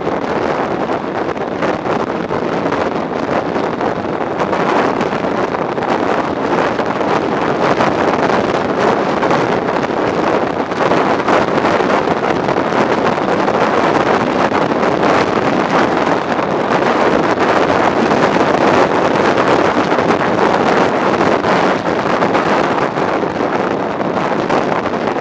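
Steady wind noise buffeting the microphone of an action camera mounted on a motorcycle riding at road speed, growing a little louder after the first few seconds.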